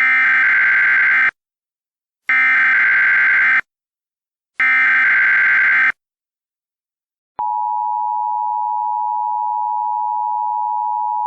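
Emergency Alert System SAME header: three bursts of buzzing digital data tones, each just over a second long and about a second apart. About seven seconds in, the steady two-tone EAS attention signal (853 and 960 Hz) starts, announcing an emergency alert.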